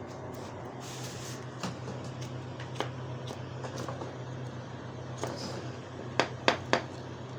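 A steady low hum with scattered light clicks of handling, and three sharp clicks close together about six seconds in.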